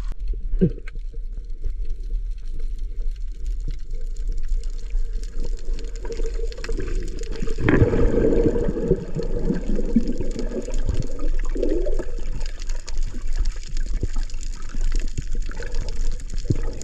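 Muffled water sloshing and bubbling heard from under the surface, with faint scattered clicking throughout and a louder swirl of bubbling from about eight to twelve seconds in.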